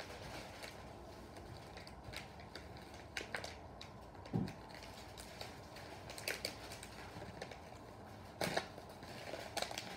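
Hands handling a package and trying to open it: scattered small clicks and light rustles, with a dull knock about four seconds in and a sharper click near the end.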